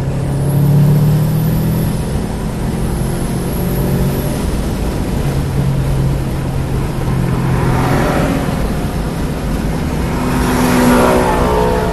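In-cabin sound of a car at speed on a racetrack: engine running steadily under load with tyre and wind noise. A louder rushing swell builds about eight seconds in and again near the end.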